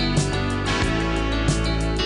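Upbeat theme music with guitar and a steady beat.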